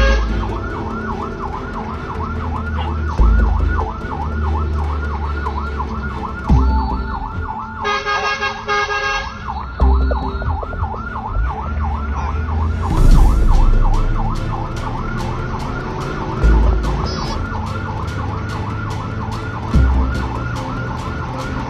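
Fire engine siren sounding close by in a fast yelp, its pitch rising and falling several times a second without a break. Over a low rumble, a horn blares for about a second and a half roughly eight seconds in.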